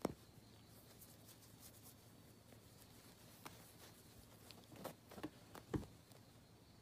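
Near silence in a small room, broken by a few faint taps and scuffs of a kitten wrestling with a hand on a woven rug, the loudest a soft thump about a second before the end.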